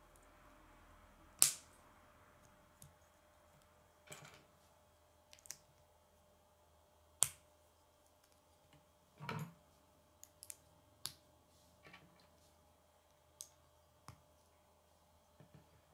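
Small plastic K'nex pieces clicking and snapping together in the hands: about a dozen short, sharp clicks at uneven intervals. The loudest snaps come about a second and a half in and about halfway through.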